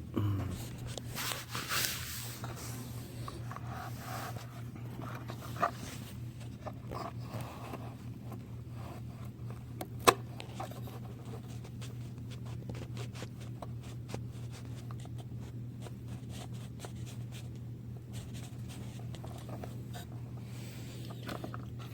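Faint handling noises as a vacuum pump's plastic parts are worked with small pliers: small clicks and rustles over a steady low hum, with one sharp click about ten seconds in.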